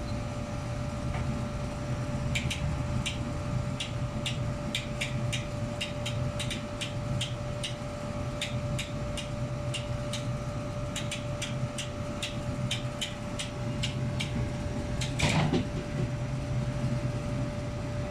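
Hand-cranked winch on a material lifter clicking its ratchet, a run of sharp clicks at two to three a second for about twelve seconds as the outdoor unit is raised. One louder clank comes about fifteen seconds in, over a steady machine hum.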